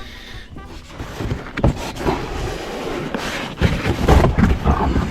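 Cardboard packaging and plastic shed panels being handled and unpacked: irregular rustling and scraping with several knocks, busiest in the second half.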